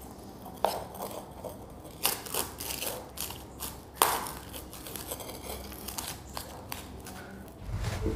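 A metal spoon clinking and scraping against a steel bowl at irregular intervals while grated bottle gourd is mixed with spices. Near the end a steady low rumble comes in.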